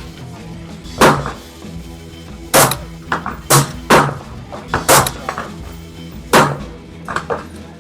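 A series of sharp clacks and knocks, about six loud ones at irregular intervals with a few fainter ones between, over steady background music.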